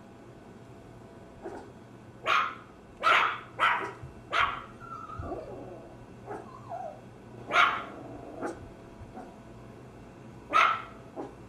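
Maltese barking in short sharp barks: four in quick succession about two seconds in, then single barks near the middle and near the end, with a few faint whines that fall in pitch in between.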